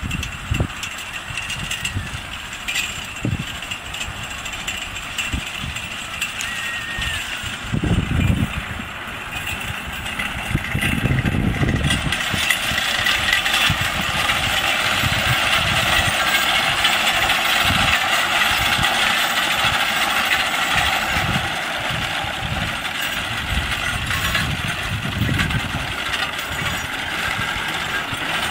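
Horse-drawn sickle-bar mower pulled by a mule team, its reciprocating cutter-bar knife clattering steadily as it cuts hay. The clatter gets louder about ten seconds in, with occasional low thumps and rumbles.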